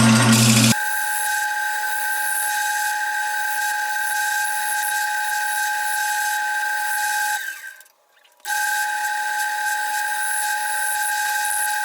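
Wood lathe running with a steady high-pitched whine. For the first second a loud rough noise of work on the spinning wood stops abruptly, and about two-thirds of the way through the sound drops out for a second before the whine comes back.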